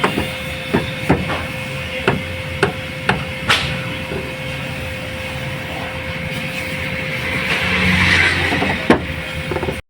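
Hammer blows on a truck's sheet-metal body during denting work: a run of sharp, irregular strikes over the first few seconds and one more near the end, over a steady machine hum.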